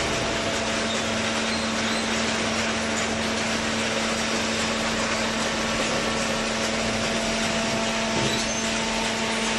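Hydraulic paper baler's electric motor and hydraulic pump running: a steady mechanical noise with a constant low hum tone underneath.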